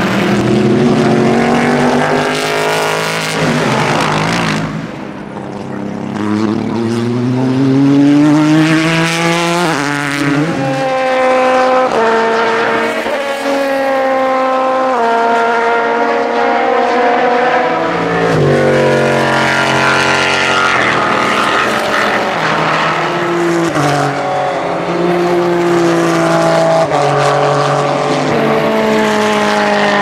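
Race car engines at full throttle, passing one after another; their pitch climbs and drops back in steps as they upshift, over and over.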